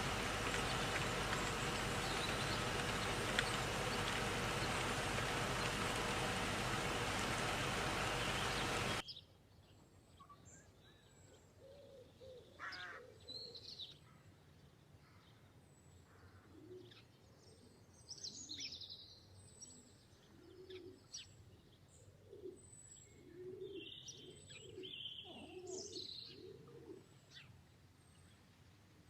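A loud steady noise with a faint hum cuts off abruptly about nine seconds in. Pigeons then coo over and over, low arching calls about a second apart, with small birds chirping higher up.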